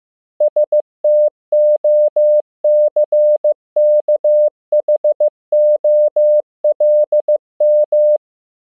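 Morse code sent at 15 words per minute as a single steady electronic tone, keyed on and off in dots and dashes spelling out a practice word; it starts about half a second in and stops shortly before the end.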